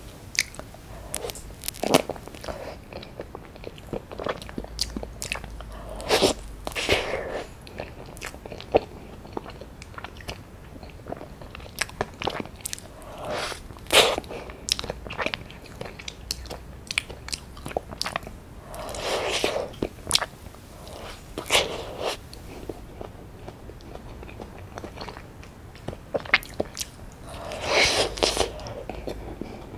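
Close-miked eating sounds of strawberry soft-serve ice cream: scattered wet mouth clicks and smacks, with a few longer, louder bites spread through.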